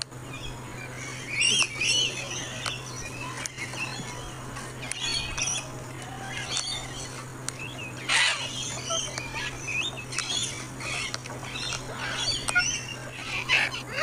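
Sulphur-crested cockatoos making many short chirps and squawks, with louder, harsher calls about eight seconds in and again near the end, over a steady low hum.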